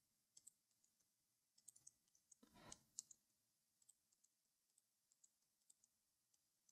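Near silence broken by faint, scattered clicks from a computer mouse and keyboard being worked, with a brief soft rustle about two and a half seconds in.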